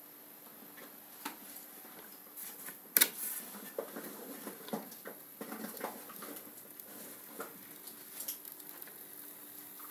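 OO gauge model tank locomotive running slowly along test track: a faint steady hum with scattered small clicks and ticks, and one sharper click about three seconds in.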